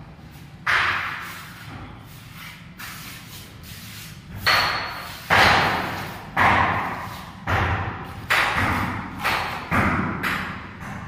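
A mason's trowel knocks sharply against cement and the metal chamber frames while mortar is being set. There is one knock near the start, then after a pause the knocks come about once a second, each ringing out in a bare, echoing room. One has a brief metallic ping.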